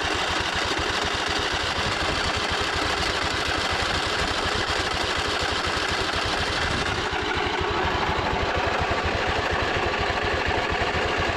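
Briggs & Stratton Intech V-twin engine of a lawn tractor running steadily just after being cranked; the owner suspects a dirty carburetor with a stuck float or needle.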